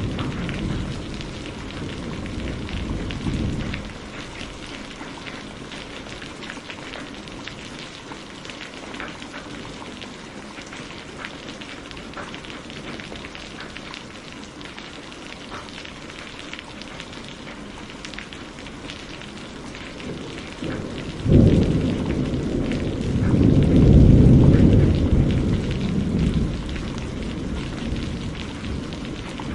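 Heavy rain pouring steadily, with thunder rumbling away over the first few seconds. About two-thirds of the way through, a sharp thunderclap breaks, followed by a long, loud rolling rumble that slowly fades.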